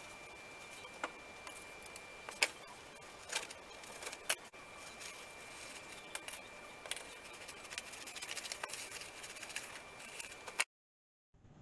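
Faint, scattered clicks and light scraping of a knife and kitchen utensils, as filling is spread on bread, over a faint steady high-pitched whine. The sound cuts off abruptly about a second before the end.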